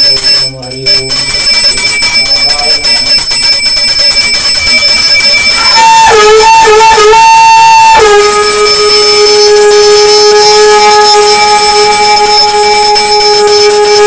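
A puja hand bell rings continuously. From about six seconds a conch shell (shankha) is blown: a few wavering starts, then one long, steady, loud note held from about eight seconds to the end.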